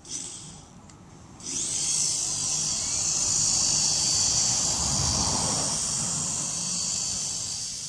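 Cheap Chinese toy RC helicopter's small electric motor and rotors starting up suddenly about a second and a half in and running with a steady high-pitched whine.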